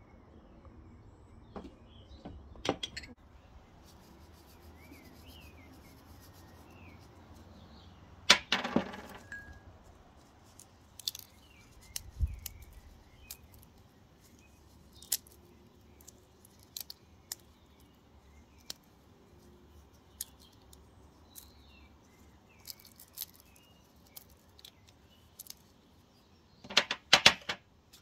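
Light clicks and taps of tableware and food being handled: a small glass bowl and crumbled walnut pieces as a dish is topped by hand. A louder clatter comes about eight seconds in and a quick run of loud clicks near the end, over a low steady background hum.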